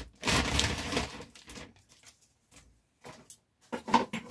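Sealed plastic mailer bag being opened by hand: about a second of loud crackling and rustling plastic, then a pause, then a few short rustles and clicks near the end.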